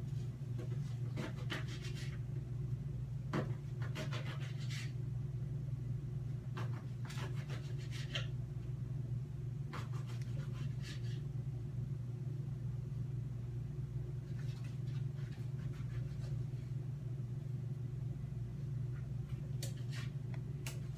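Bread knife sawing through bread and knocking on the cutting board in short bouts of quick strokes, over a steady low hum.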